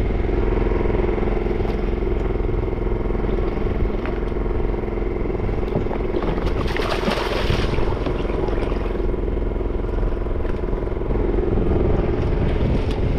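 A fishing boat's engine runs with a steady drone. About seven seconds in there is a brief splash as a fish is hauled out of the water.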